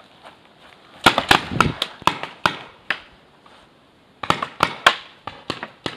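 Paintball markers firing in quick volleys of sharp pops: a burst of about eight shots about a second in, a pause, then a second rapid burst over the last two seconds.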